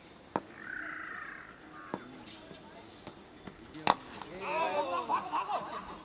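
A harsh call lasting about a second, then a single sharp crack about four seconds in, followed by several voices calling out.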